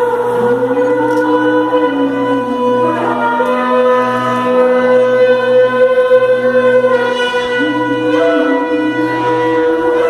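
Several shofars (ram's horns) blown together in long, overlapping held blasts. A lower horn slides up into its note about half a second in and again near eight seconds, while the higher notes hold steady throughout.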